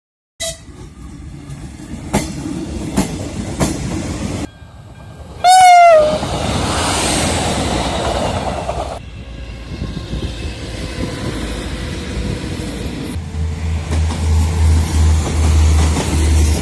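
Passenger trains running on the track, a steady rumble that changes abruptly several times. A short wavering horn blast comes about five and a half seconds in and is the loudest sound. Near the end there is a deep, pulsing rumble.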